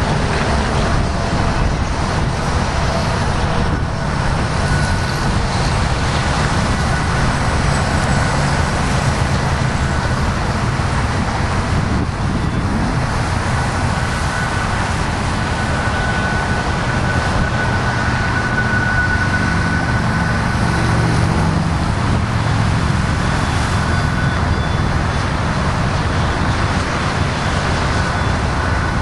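Highway traffic: cars and trucks passing close by in a steady rush of tyre and engine noise.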